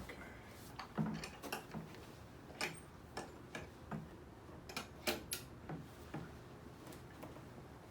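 A series of irregularly spaced sharp clicks and pops, about a dozen, the loudest about a second in and about five seconds in: joints cracking under a chiropractic neck adjustment.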